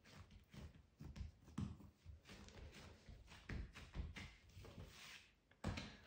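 Hands pressing and patting a round of yeast bread dough flat on a silicone baking mat: faint, irregular soft taps and low thuds with brushing and rubbing in between.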